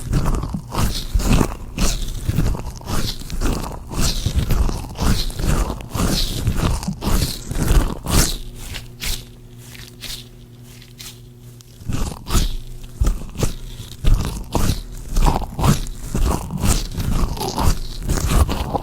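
Gloved hands rubbing and scrunching together close to the microphone: irregular crinkling and scraping strokes, pausing for a few seconds in the middle.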